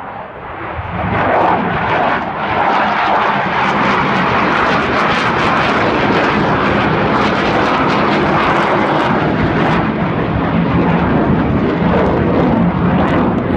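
McDonnell Douglas CF-18 Hornet's twin turbofan engines at takeoff thrust as the jet lifts off and climbs away: loud jet noise that swells about a second in and then holds, rough and crackling.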